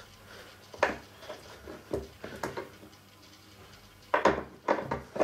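Longboard truck hanger being fitted back onto its baseplate and kingpin, metal parts clinking and knocking: a few single knocks, then a quick cluster near the end.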